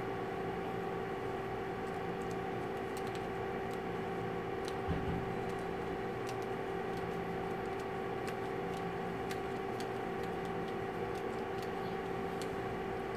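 Steady room hum and hiss, with two held tones, as from ventilation or a projector fan. A few faint scattered ticks and a soft low thump come about five seconds in.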